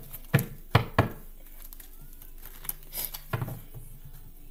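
Deck of oracle cards being shuffled by hand, papery rustling with sharp card slaps: three in the first second and two more around three seconds in.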